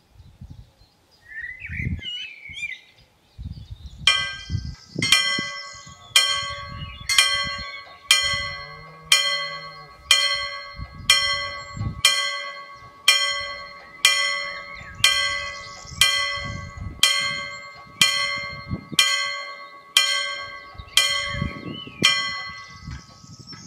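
Danish level-crossing warning bell striking about once a second, each stroke ringing out and fading. It starts about four seconds in and stops near the end, warning of an approaching train while the barriers come down.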